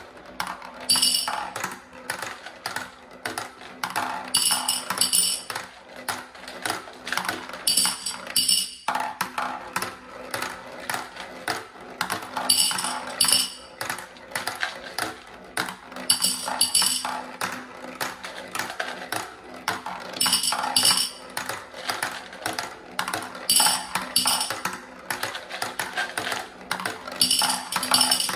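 Glass marbles rattling and clacking down the zigzag plastic ramps of a wooden marble-run tower, each run ending in bright glassy clinks as the marble drops into a glass jar full of marbles. A new marble goes about every four seconds, eight runs in all.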